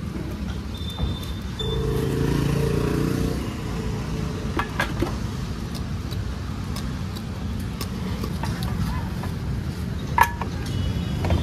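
Steady low rumble of vehicle engines and traffic, with a short pitched engine hum about two seconds in and a sharp click about ten seconds in as the fuel cap goes back onto the motorcycle's tank.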